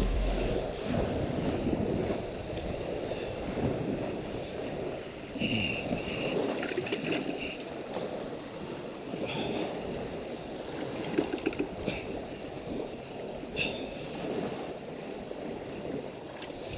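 Small waves washing and gurgling on the beach, a steady rushing with a few short, higher sounds over it.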